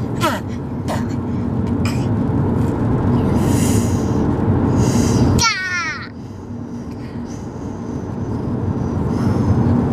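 Steady road and engine noise inside a moving car. It dips about six seconds in and builds back up. Just before the dip a young child gives a high squeal that falls in pitch.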